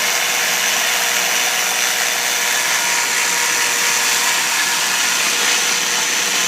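Homemade 2x72 belt grinder running without load, its 2 hp, 3450 RPM electric motor driving the abrasive belt at speed: a steady whir with a thin high whine over it. The belt is running with a lot of wobble.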